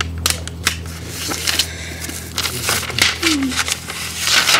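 A sheet of lined notebook paper being folded in half and creased by hand: crisp rustling and crinkling with a string of sharp little taps, and a louder swish near the end as the hand sweeps along the fold.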